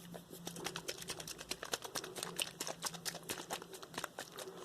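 Fingertips or nails tapping on a small plastic mushroom-shaped humidifier: quick, irregular light taps, several a second.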